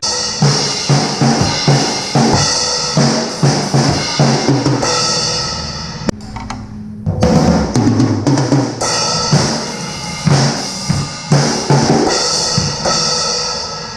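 Drum kit played in a loose groove, with kick drum, snare hits and a steady cymbal wash. It starts abruptly and breaks off briefly about six seconds in before picking up again.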